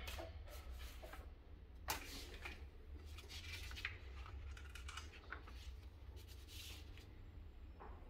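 Paper pages of a printed brochure rustling as they are handled and flipped, with scattered light handling clicks and one sharper click about two seconds in.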